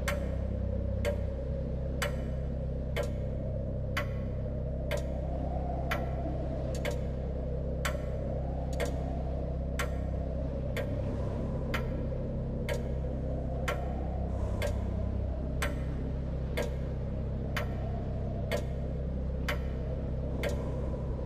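Pocket watch ticking slowly and evenly, about once a second, over a low sustained drone whose notes shift slowly.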